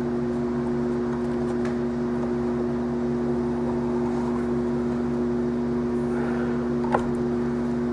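A steady machine hum with a constant low drone, and one sharp click about seven seconds in.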